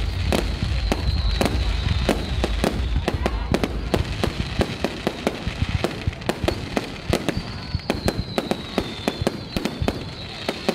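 Fireworks display: rapid bangs and crackling pops from aerial fireworks, over a deep rumble that falls away about four seconds in.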